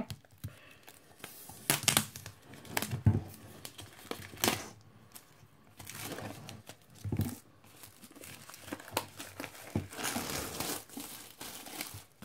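Cellophane shrink wrap being torn and peeled off a vinyl LP jacket, crinkling and tearing in irregular sharp crackles.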